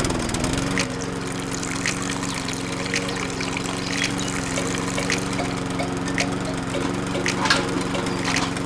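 Small electric motor starting up and running at a steady hum, with liquid trickling and a few light clicks.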